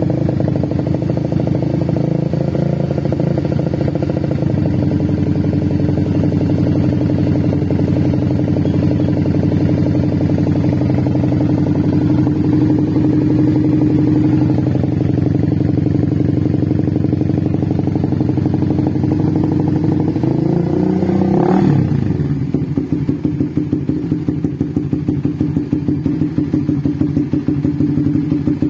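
Bored-up Suzuki GSX-R150 single-cylinder engine idling with a steady beat, given a short throttle blip about three-quarters of the way in. After the blip the idle turns choppy and pulsing, the lumpy 'drum band' or 'helicopter' idle of the tuned engine.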